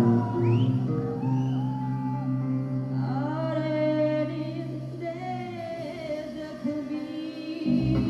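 Live rock band music: a woman singing long notes that slide up and down in pitch over held bass notes. The bass drops out briefly near the end, then comes back.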